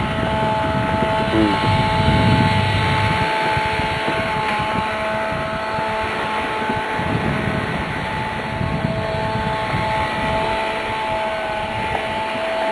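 Motorboat engine running steadily, with a constant whine over an uneven low rumble.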